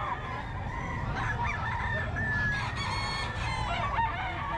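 Gamecock roosters crowing, several calls overlapping, the loudest about three seconds in.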